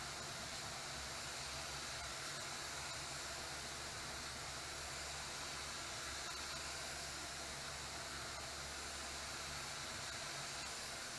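Steady, unbroken hiss of compressed air with a low hum underneath, from a paint-spraying air setup.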